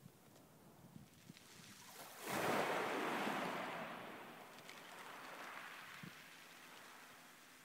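Small sea wave breaking onto a pebble beach about two seconds in, then washing up the shingle and slowly fading away.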